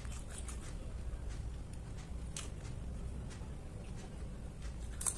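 Quiet eating sounds over a low steady hum: a metal spoon scooping noodles, with a few faint clicks and taps, the sharpest just before the end.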